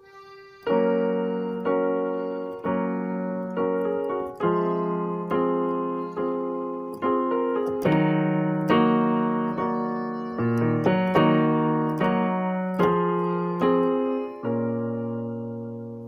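Background piano-style keyboard music: chords struck about once a second, each fading before the next.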